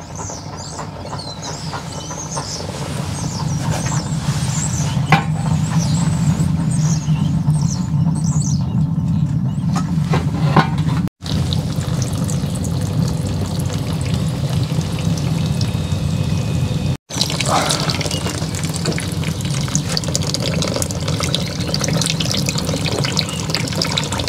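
Melted beeswax and condensed water trickling from a steam wax melter's outlet into a plastic bucket, over a steady low rush of steam from the boiler. The sound drops out briefly twice.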